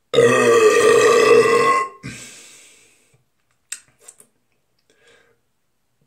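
A man's loud, long burp of nearly two seconds from chugged soda, followed by a breathy exhale and a few faint clicks.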